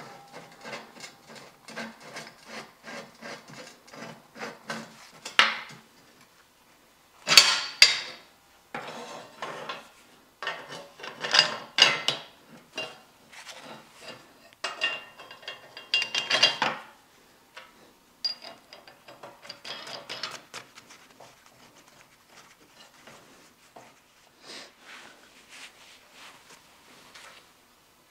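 Steel parts being handled and fitted on a steel fixture table: a run of clinks, scrapes and clanks with brief metallic ringing, loudest in three bursts in the first two-thirds, then lighter tapping and rubbing.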